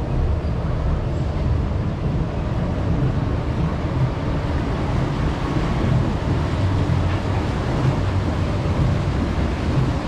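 Steady low rumble and rushing noise of an Intamin river-rapids raft moving along its water channel.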